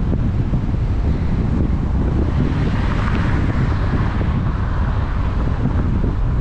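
Wind buffeting the microphone of a camera riding in a moving vehicle, over a steady low rumble of engine and road noise. A passing vehicle adds a brief rise of hissy traffic noise around three seconds in.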